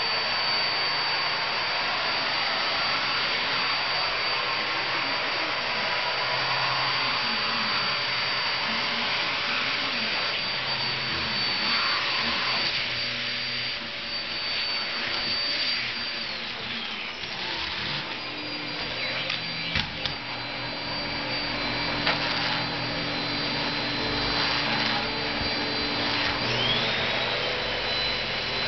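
Vacuum cleaner running steadily with a high whine over its airflow noise. The whine drops in pitch a little past halfway and rises again near the end. A couple of sharp knocks come in the second half.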